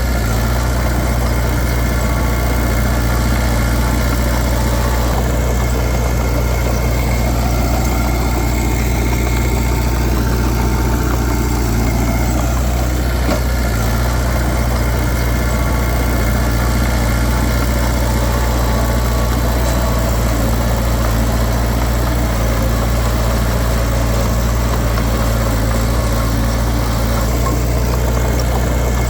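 Diesel engine of heavy earthmoving machinery running steadily at an even pitch, with a strong low hum and no sudden changes.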